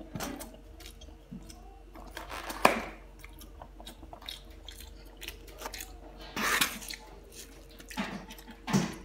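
A person chewing a mouthful of roasted chicken and rice close to the microphone, with soft wet mouth sounds and three louder sharp clicks spread through it.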